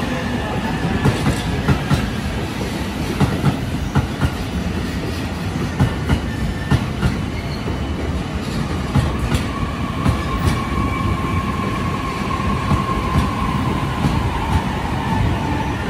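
JR East E531 series AC/DC electric multiple unit rolling past, with a low rumble and wheels clacking over rail joints. A steady high whine from the train sets in about ten seconds in.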